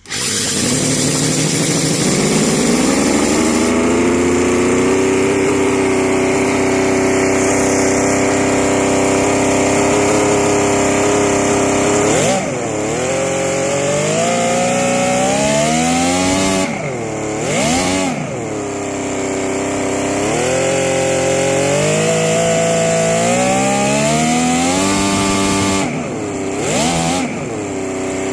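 An engine starting and revving up, then running at high revs; the revs drop and climb back quickly several times, as with throttle blips.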